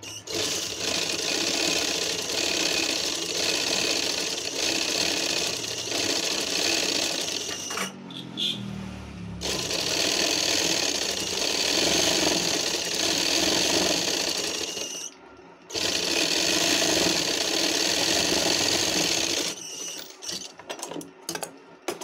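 Sewing machine stitching fabric in three long runs, with a short stop about eight seconds in, where its hum falls in pitch, and another brief stop about fifteen seconds in. Near the end the machine is quiet and there are only light clicks and rustles of the cloth being handled.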